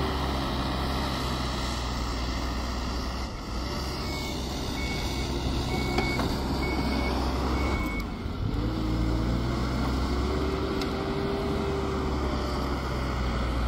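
Hidromek backhoe loader's diesel engine running steadily while working in deep snow, with its reversing alarm beeping five times at an even pace starting about four seconds in. A little past halfway the engine dips briefly, then picks up again with a rising pitch.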